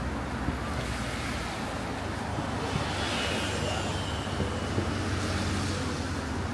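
Steady outdoor background noise with a low rumble, like street traffic, and no distinct bangs.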